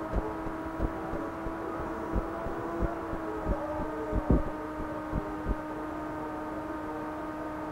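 Live experimental electronic music from circuit-bent electronics: a steady electronic drone with several overtones, over irregular low thumps and crackles that die out about two-thirds of the way through.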